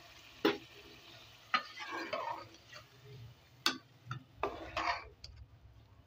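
Steel ladle stirring a watery red kidney bean curry in an aluminium pot, with wet swishing and four sharp knocks of the ladle against the pot.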